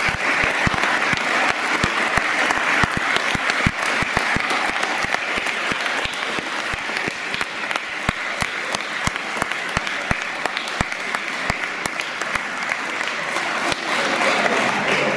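Crowd applause: many people clapping steadily and densely throughout.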